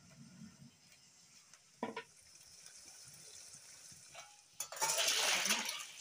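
Masala frying in a wok with a faint steady sizzle and a metal clink about two seconds in. Near the end a loud rush of water for about a second as boiled chayote squash is tipped from a pot into a metal colander to drain.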